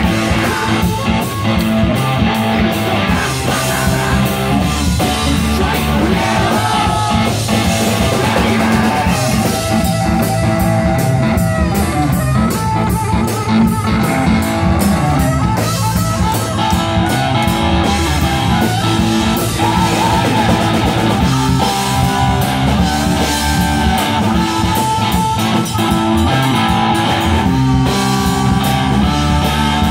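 A live rock band playing a song: electric guitars over a drum kit, loud and continuous.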